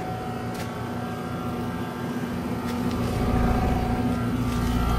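Trane XR14 heat pump's outdoor unit running steadily: Copeland scroll compressor hum under the Genteq condenser fan. A low rumble grows louder from about three seconds in as the phone moves in close over the unit.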